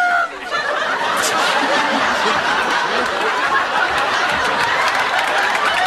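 Studio audience and cast laughing together, a steady wall of laughter from a large crowd that swells in about half a second in and holds.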